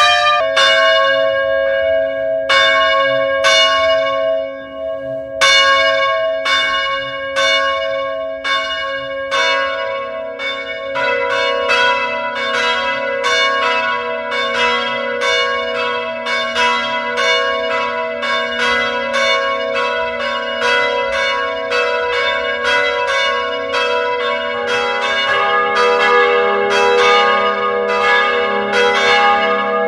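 Church bells ringing in repeated strokes, about one a second at first with a brief pause near five seconds. More bells of different pitches join about ten seconds in, and a lower bell joins near twenty-five seconds, so the strokes overlap and ring on into each other.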